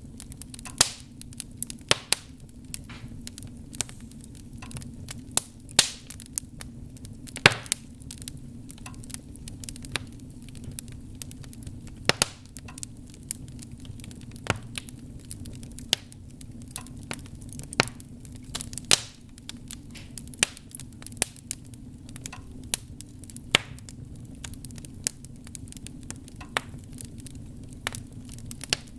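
Wood fire burning in a fireplace: a steady low rumble of the flames with sharp, irregular crackles and pops, a few of them loud.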